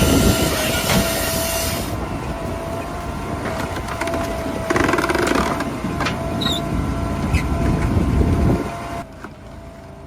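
Heavy wood-processing machinery running: a steady high tone over loud, rough mechanical noise and low rumble, louder for a moment about five seconds in, then dropping away suddenly about nine seconds in.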